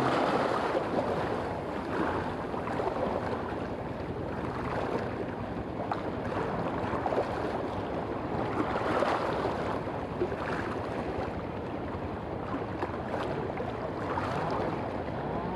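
Choppy seawater lapping and splashing against rocks close to the microphone: a steady rushing wash of water.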